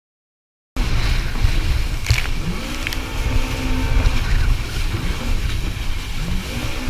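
Jet ski running at speed across open water, starting about a second in. Its engine note rises a couple of times with the throttle under heavy wind buffeting on the microphone and rushing, splashing water.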